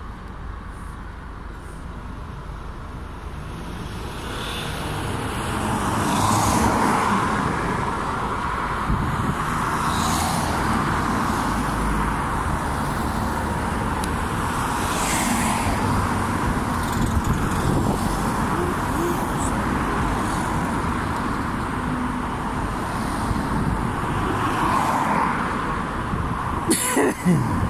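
Road traffic passing, cars swelling up and fading one after another, over a low rumble of wind on the microphone.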